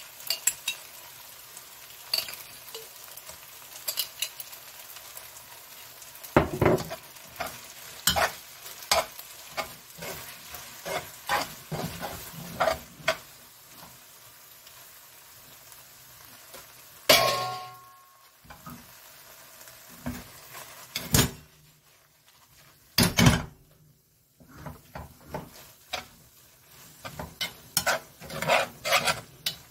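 Spaghetti in tomato sauce sizzling in a frying pan while it is stirred and tossed with a utensil, with frequent clicks and scrapes against the pan. A louder knock with a brief ring comes about seventeen seconds in, and a few more knocks follow a few seconds later.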